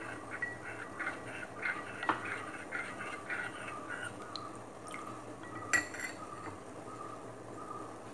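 Watermelon juice and milk boiling in a steel pot, bubbles popping irregularly. One sharp metallic clink with a short ring comes about six seconds in.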